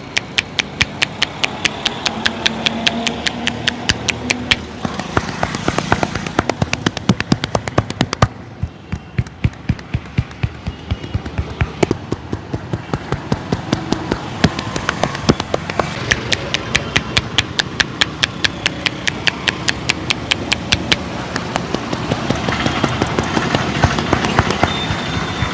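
Hands rapidly slapping and chopping on a person's head and back in a percussive massage, several sharp strikes a second in a steady rhythm. The strikes thin out for a few seconds in the middle, then pick up again.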